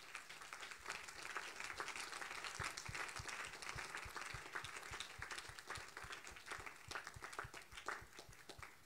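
Congregation applauding, a dense patter of hand claps that dies away near the end.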